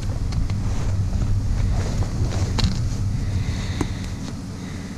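Low, steady hum of a vehicle engine idling, with a few sharp clicks and knocks over it. The hum eases off slightly near the end.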